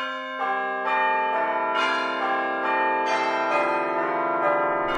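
Bells chiming a melody over the title card: struck notes at different pitches, a new one every half second or so, each ringing on and overlapping the last.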